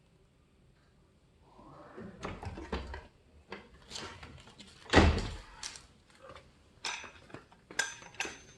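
Parts of a pull-up bar being handled: rustling with a run of knocks and clatters, the loudest a sharp thump about five seconds in.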